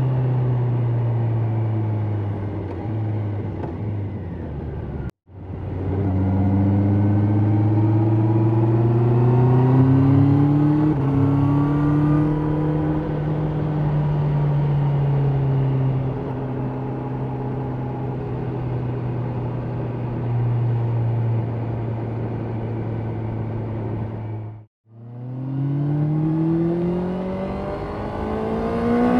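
2024 Honda CB650R E-Clutch's 649 cc inline-four engine accelerating under way, its pitch climbing and then dipping at an upshift, before holding steady cruising revs. The sound cuts out sharply twice, each time followed by another climb in revs.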